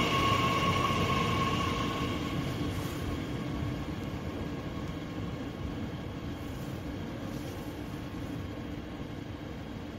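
A Bombardier Talent 2 electric multiple unit pulling away and receding. A steady whine fades out within the first two seconds, and the low rolling rumble grows steadily fainter as the train moves off.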